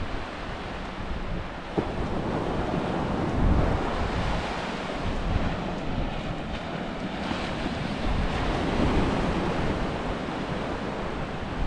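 Small waves breaking and washing up a flat sandy beach on an incoming tide, a steady surf hiss that swells and eases, with wind buffeting the microphone.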